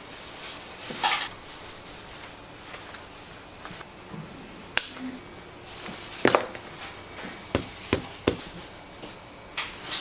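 Umbrella ribs clicking and clinking against each other and the top notch as they are handled and fitted by hand. The clicks are sharp and irregular, with several in quick succession in the second half.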